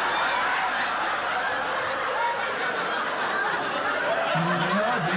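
Studio audience laughing, a steady wash of many people's laughter; a man's voice cuts in over it near the end.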